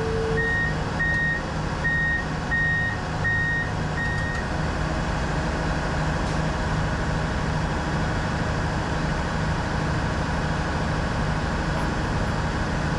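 A heavy vehicle's backup alarm beeps six times at an even pace and then stops, over a diesel engine running steadily.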